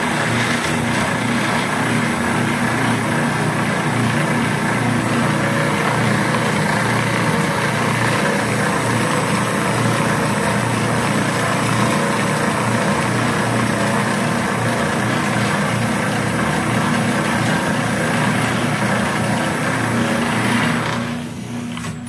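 Wire wheel brush on an old electric motor's shaft spinning against a steel bandsaw-mill blade, scrubbing rust off it: a steady hiss over the motor's hum. The scrubbing falls away near the end.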